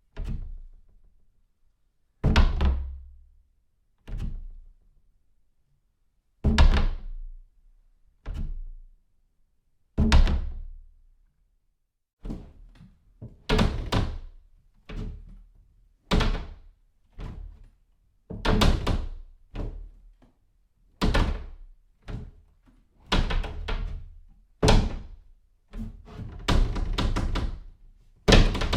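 A series of doors being shut, about twenty separate closing thuds, each with a short ringing tail. They come a couple of seconds apart at first, then more quickly from about halfway through.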